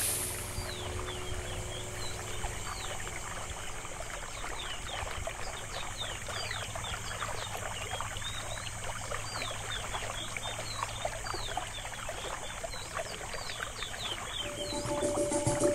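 Water trickling and babbling in a stream, with small birds chirping in quick falling notes over it. Music comes in near the end.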